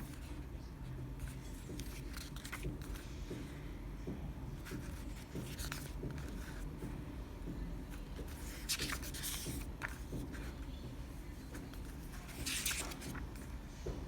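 Hands handling CD and DVD packaging: short scratchy rustles and scrapes a few times, with small clicks, over a low steady hum.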